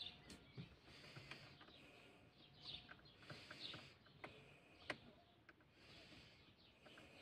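Near silence: a few faint clicks and handling noises, with faint bird chirps.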